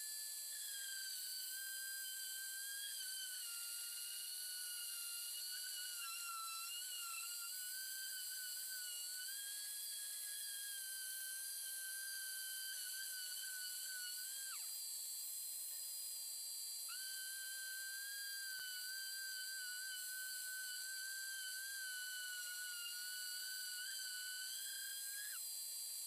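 Trim router spindle on a CNC machine milling plywood with a single-flute end mill: a high steady whine whose pitch wavers as the cut loads it. The whine drops away about halfway through and comes back a couple of seconds later.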